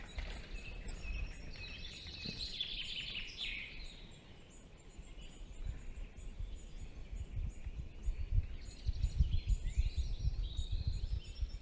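Woodland songbirds singing in two stretches of short phrases, one early and one near the end, over an irregular low rumble with knocks that grows louder in the second half.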